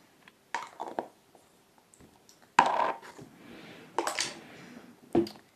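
Small hard objects being handled: a few separate knocks and clicks, the two loudest each followed by a second or so of rustling, like things being picked up, put down and rummaged through.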